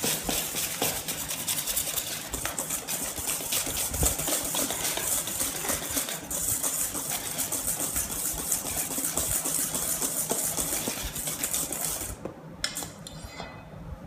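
Wire balloon whisk beating egg into creamed butter and sugar in a stainless steel bowl: rapid, even strokes of wires scraping and clinking against the metal. The whisking stops about twelve seconds in.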